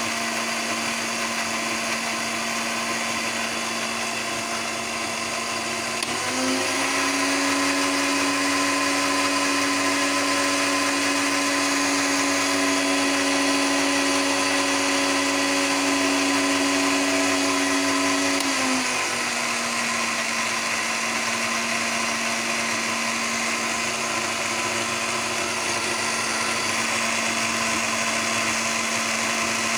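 Electric mixer-grinder running steadily, its blades grinding raw mango, mint and green chilli with a little water into chutney. About six seconds in, the motor's pitch rises and it gets louder; near eighteen seconds it falls back to the lower note.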